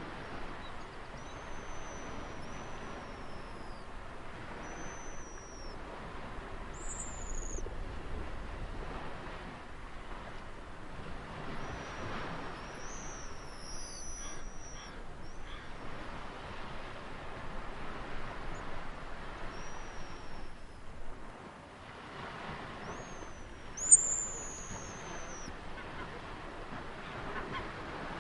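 Steady wash of ocean surf with birds calling over it: short, high whistles that slide down in pitch, repeated many times. A single sharp click about 24 seconds in is the loudest sound.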